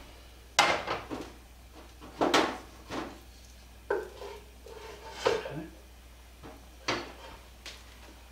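A wooden spoon scraping and knocking inside a cooking pot, making a series of sharp clanks at uneven intervals as the last of a thick cheese sauce is scraped out. The pot is set down on a gas stove's burner grate.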